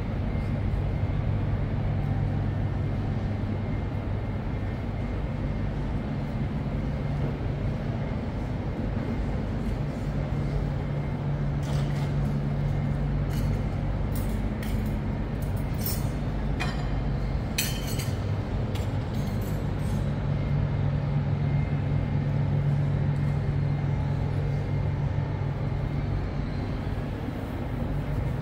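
Railway station ambience: a steady low mechanical hum with a general background wash, and a handful of brief sharp high sounds about halfway through.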